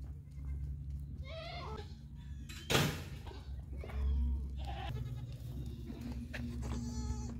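Goat bleating, a wavering call about a second and a half in and a fainter one past the middle, with a brief sharp thump near three seconds in over a steady low rumble.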